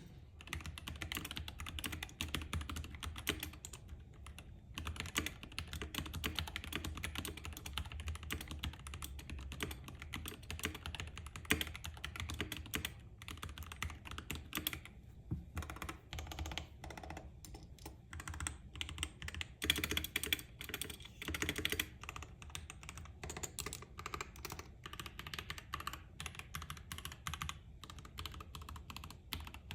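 Typing on a Wuque Studio Aurora custom mechanical keyboard fitted with GMK keycaps: a quick, continuous run of key clacks with a few short pauses, and a louder, denser flurry about two-thirds of the way through.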